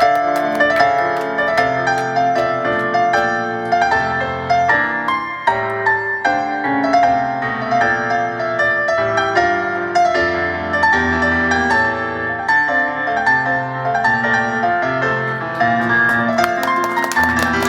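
Piano-led music with a low bass line under it, many quick notes and no singing.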